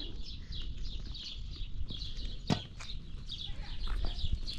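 Small birds chirping over and over in short, high, falling notes, several a second, over a low rumble, with one sharp knock about halfway through.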